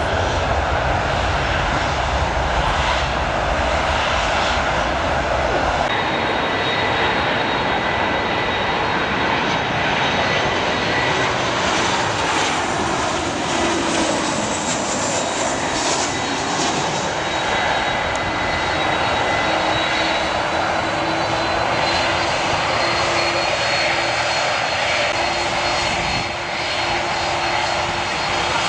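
Jet aircraft engines running steadily. A business jet's engines with a deep rumble for the first six seconds or so, then, after an abrupt change, a Boeing 737's engines with a steady roar and a thin high whine as it comes in on approach.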